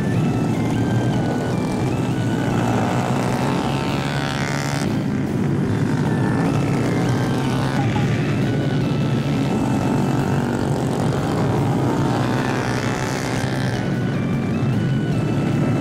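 Honda Grom 125 cc single-cylinder mini bikes racing through a corner, their engines revving and rising then falling in pitch as they pass, most clearly about three to five seconds in and again near the end. Background music plays over the engine noise.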